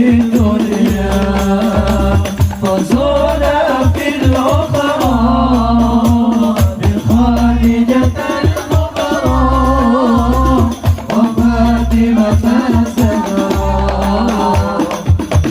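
Islamic devotional song (sholawat): a solo voice sings a wavering, ornamented melody over hadroh frame-drum and bass-drum beats.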